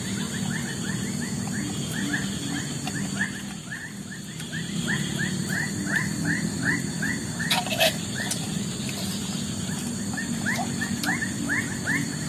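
Wild animal chirping: a quick, regular run of short chirps, about three or four a second, over a steady high hum. One short click about eight seconds in.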